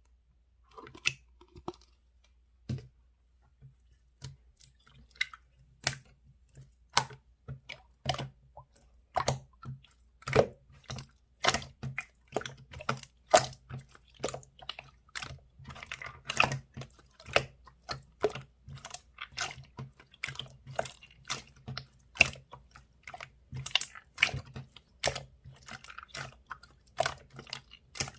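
Slime being squeezed, poked and folded by hand, giving sharp sticky clicks and pops. They come sparsely at first, then run on fast and irregular, several a second, from about four seconds in.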